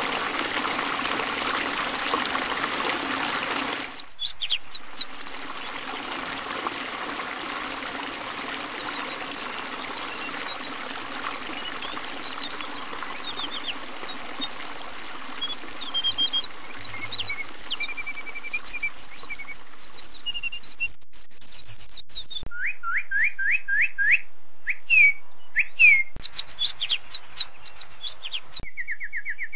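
Running stream water as a steady hiss that cuts off about four seconds in. Then birds singing: scattered chirps and whistled notes, growing into louder, rapid trills in the last several seconds.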